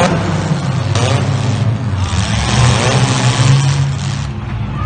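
Demolition derby cars' engines running and revving hard together in a low, steady rumble, with a few short rising revs.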